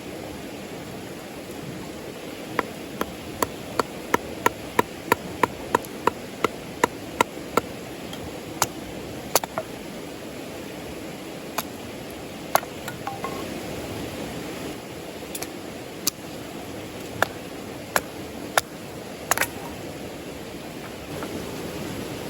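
Steady rush of river water with a run of sharp knocks, about three a second for several seconds, then scattered single knocks.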